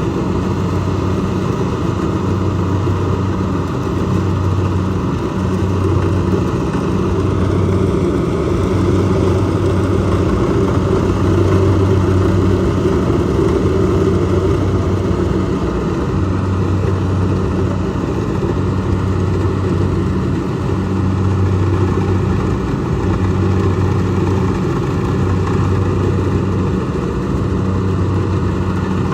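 Kubota DC70 rice combine harvester's diesel engine and machinery running steadily, with a constant low hum and only small changes in level.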